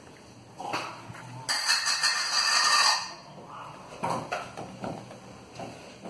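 A metal spoon stirring a thick cream filling in a plastic tub. It scrapes against the tub, loudest for about a second and a half near the middle, with a few light clicks and knocks later.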